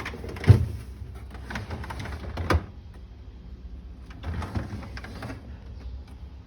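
Rattling and knocking of things being handled and put away, with two sharp knocks, about half a second and about two and a half seconds in, and another stretch of rattling a little after four seconds in.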